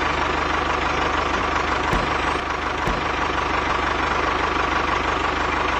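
Tractor engine running steadily, with a fast, even low chugging.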